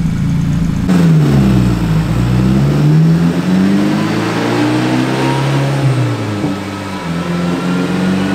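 Turbocharged 2.0 TSI four-cylinder of a big-turbo VW GTI running as the car rolls on a chassis dyno at low speed. The engine note changes abruptly about a second in, dips and climbs again, and dips once more near six seconds, with a faint rising whine over the top in the second half.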